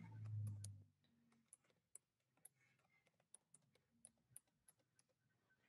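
Faint computer keyboard keystrokes, a dozen or so scattered clicks of someone typing, after a short low hum in the first second.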